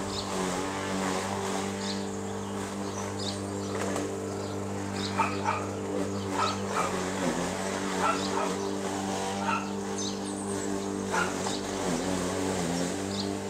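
A steady low engine hum, like a motor idling, dipping slightly in pitch twice, with short high bird chirps over it.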